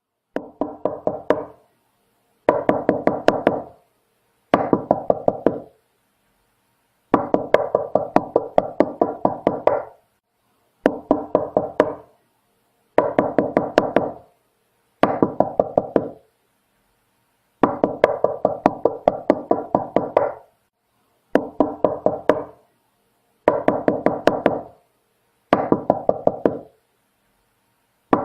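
Knocking on a door in quick bursts of rapid knocks, about six a second, each burst lasting one to three seconds and separated by short silences; eleven bursts in all.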